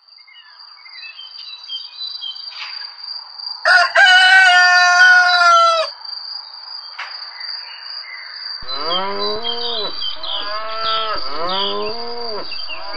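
Farmyard animal sounds: a rooster crows once, loudly, about four seconds in, then cattle moo in four drawn-out calls from about nine seconds on. A steady high insect trill and a few bird chirps run underneath.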